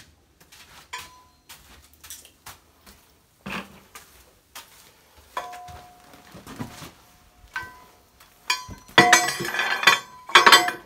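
Scattered knocks and metallic clinks of tools and steel parts being handled on a pipe-bursting puller, ending in a loud burst of metal-on-metal clanking and ringing in the last two seconds.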